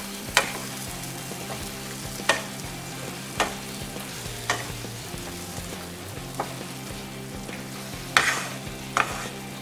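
A wooden spatula stirs and turns small whole brinjals through thick frying masala in a coated frying pan. It knocks sharply against the pan about seven times, irregularly spaced, over a steady low sizzle.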